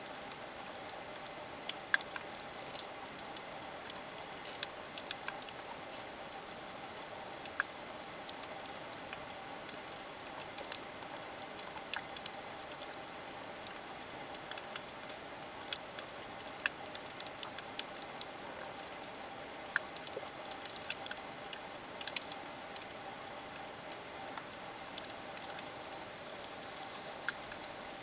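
Underwater reef ambience: a steady hiss with many irregular sharp clicks and crackles, a few of them standing out every few seconds.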